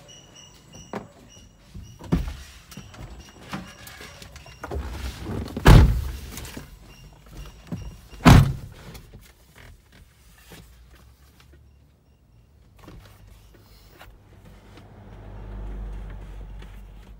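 Getting into a Mitsubishi light truck's cab: scattered knocks and rustling, then two heavy thuds about two and a half seconds apart, the louder ones from the cab door and the climb into the seat, with the door shutting.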